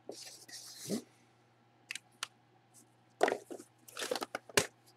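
Marker scratching across a cardboard box for about a second. Then the box is handled, with scattered cardboard rustles and clicks and a sharp click near the end.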